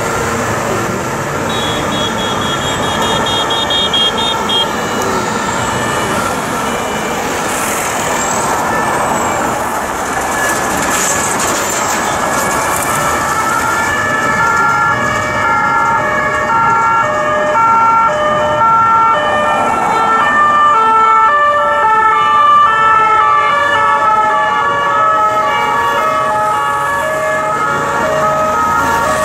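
Sirens of a French police convoy. From about halfway, several two-tone sirens sound together, each switching back and forth between a high and a low note, out of step with one another. They get louder as the vans approach over the noise of city traffic.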